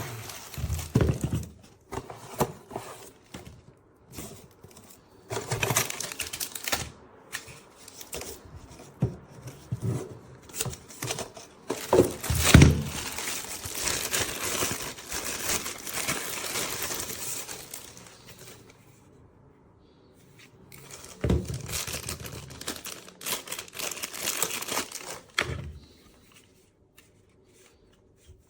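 Packaging crinkling and rustling as it is handled, with irregular knocks and clatters; it goes quiet for a couple of seconds past the middle, then the rustling resumes.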